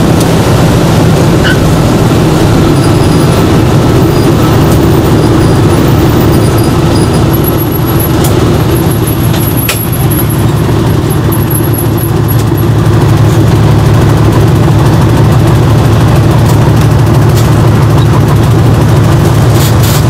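Piper Pawnee PA-25's piston engine and propeller droning loudly inside the cockpit. It eases a little about eight to ten seconds in, then grows louder again a few seconds later.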